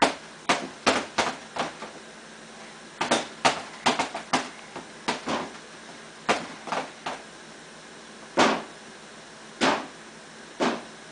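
A child's feet kicking the front of a dishwasher: a long run of sharp, uneven knocks, some in quick bunches and others a second or more apart.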